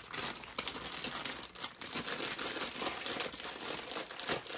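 Plastic snack-chip bags crinkling as they are handled: a busy rustle full of sharp little crackles.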